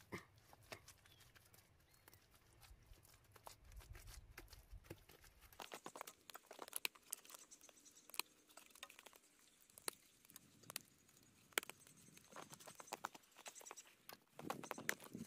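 Faint, scattered soft pats and slaps of wet mud plaster being pressed and smoothed by gloved hands onto a stone-block wall.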